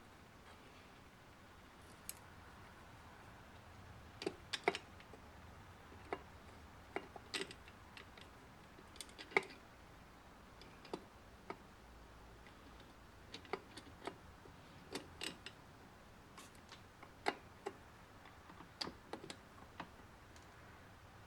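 Faint, irregular metal clicks and ticks of a tool working at a snap ring inside a 700R4 automatic transmission case, trying to catch and pry the ring out of its groove.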